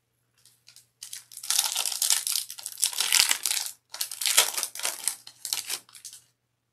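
A foil Topps Stadium Club baseball-card pack wrapper being torn open and peeled apart, crinkling, in two long stretches with a short break between them.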